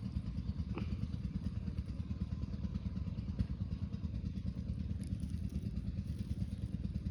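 A small engine running steadily, a low rapid chugging.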